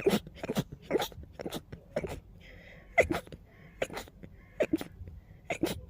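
A person's rapid string of short sneezes and quick catching breaths, about two a second, with the strongest burst about three seconds in.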